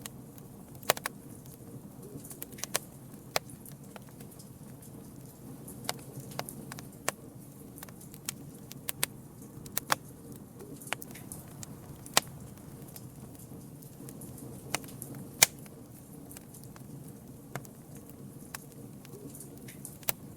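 Wood campfire crackling: sharp, irregular pops and snaps of burning wood over a low, steady rumble of the flames, with a loud pop about twelve seconds in and another about fifteen seconds in.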